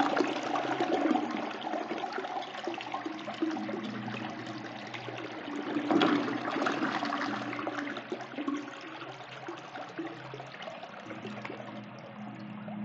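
Toilet flushing: a steady rush of water that swells again about halfway through, then gradually eases off.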